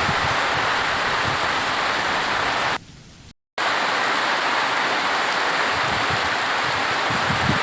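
Steady heavy rain, an even hiss. It cuts out abruptly to near silence for under a second about three seconds in, then returns at the same level.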